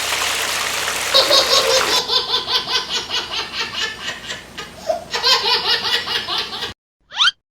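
Hearty laughter in rapid repeated bursts, starting about a second in after a steady hiss and cutting off abruptly near the end, followed by a brief rising sound effect.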